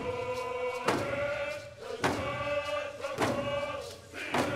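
A group of voices singing a slow, sustained chant together, with a drum beaten in unison about once every second and a bit (four beats).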